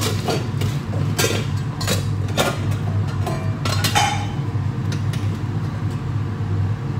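Steady low hum of commercial kitchen machinery, with several clinks and knocks of pans and utensils.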